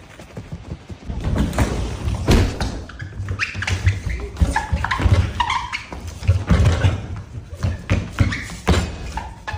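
Music with a heavy, pulsing bass.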